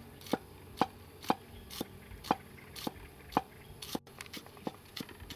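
Steel cleaver chopping spring onions on a thick wooden chopping block: steady sharp knocks, about two a second.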